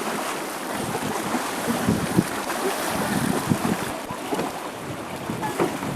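Steady rushing of wind on the microphone, with scattered small knocks.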